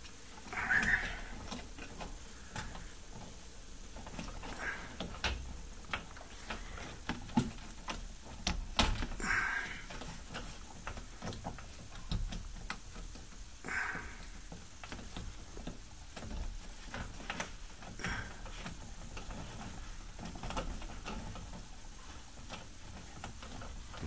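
Irregular light clicks, taps and rubbing from handling solid copper ground wires and plastic push-in wire connectors inside an electrical box, with a few slightly louder scrapes every few seconds.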